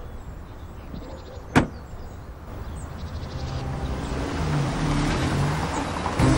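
A single sharp knock about a second and a half in. Then a car's engine and tyres grow steadily louder over the last few seconds.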